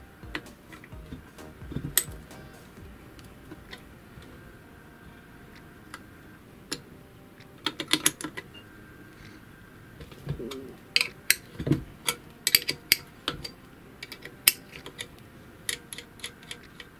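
Hex key working the end-cover screws out of the motor housing of a Soviet IE-9701 bench grinder: scattered sharp metal clicks and clinks of key and screw against the cast housing, a short cluster about eight seconds in and a quicker run of them from about eleven to fifteen seconds.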